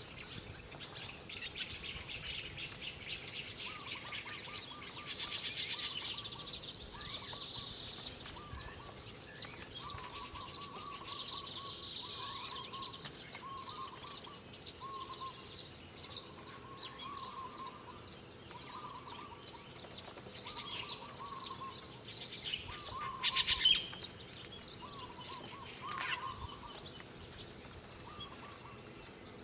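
Wild birds calling: a steady run of short, repeated chirps with louder, rapid high trills coming in several bouts over them.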